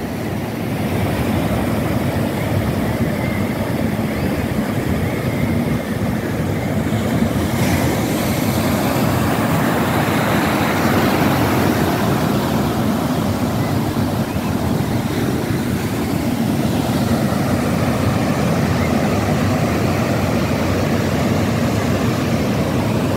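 Ocean surf breaking and foaming: a loud, steady rush of waves with no single crash standing out.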